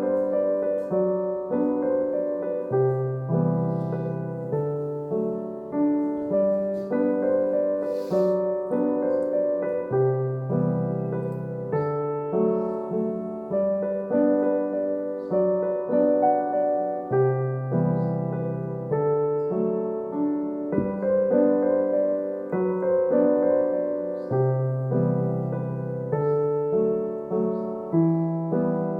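Background piano music: a gentle, steady sequence of sustained notes and chords.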